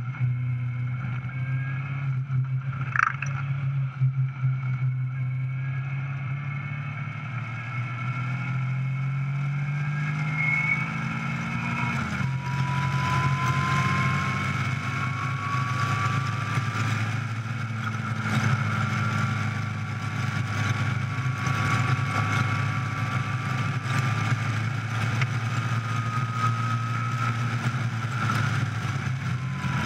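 Caterham 420R SV's four-cylinder engine pulling hard on track, heard on board, with a continuous wind-and-road noise behind it. A short knock comes about three seconds in. Around twelve seconds in the engine note changes, then climbs slowly as the car accelerates.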